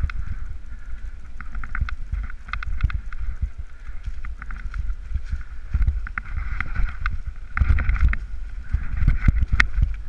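Mountain bike riding down a rough forest trail: a steady low rumble of tyres over dirt, roots and rocks and wind on the microphone, with frequent sharp rattles and clicks from the bike and camera.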